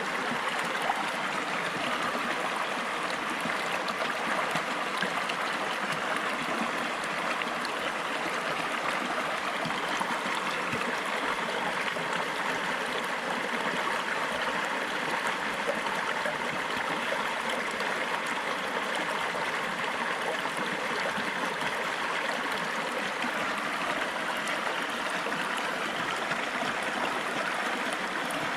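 A river running over rocks: a steady rush of flowing water, with trickling and gurgling.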